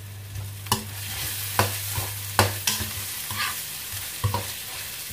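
Spice paste frying in hot oil in a wok, stirred with a metal spatula: a steady sizzle, with sharp clacks of the spatula scraping and knocking against the wok every second or so, over a low steady hum.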